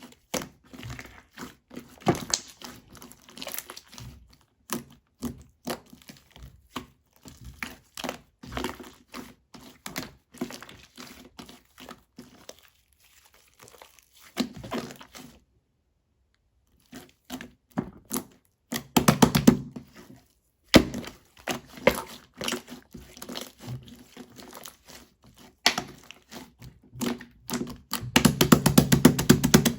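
Things being handled close to the microphone: scattered knocks, taps and crinkling, with a pause partway through. Two stretches of fast rattling follow, one around the middle and one near the end.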